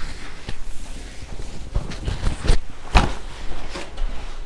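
Joints cracking during a chiropractic adjustment with the patient lying face up: a few short, sharp cracks in the second half, the loudest about three seconds in.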